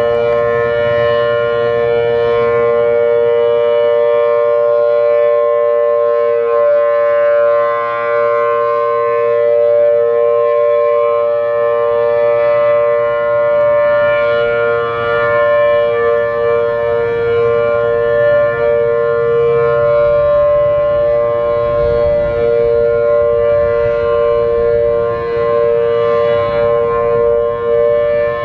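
Federal Signal Thunderbolt 1000AT outdoor warning siren with a 4/5-port rotor sounding the steady Alert signal: a loud, sustained two-note chord, its loudness wavering slightly as the siren head rotates.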